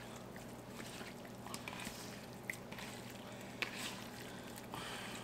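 Hands kneading and tossing seasoned raw chicken pieces in a bowl: faint wet squishing with a few small clicks.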